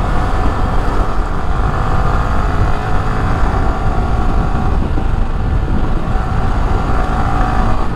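Motorcycle riding on the road: the engine runs at a steady cruise, under heavy wind rush on the rider's microphone.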